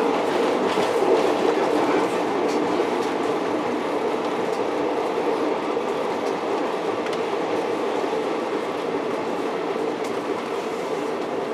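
A 'Tin Hare' rail motor running steadily along the track, heard from on board as an even rumble. A few wheel clicks over rail joints come in the first few seconds.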